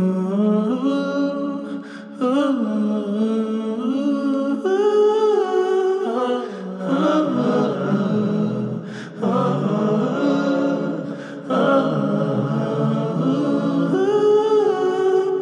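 Background music: the intro of a song, wordless singing with voices holding long notes in harmony, without a beat.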